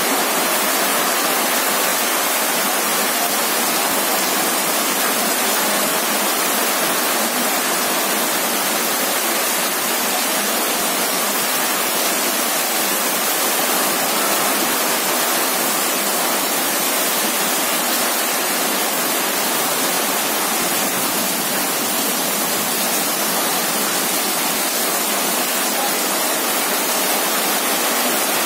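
Rain pouring down steadily, a dense even hiss with no breaks.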